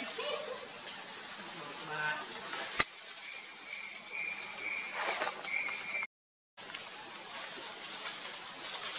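Steady high-pitched buzzing of insects, with a single sharp click about three seconds in and a short, broken high note in the middle. The sound drops out completely for half a second at about six seconds.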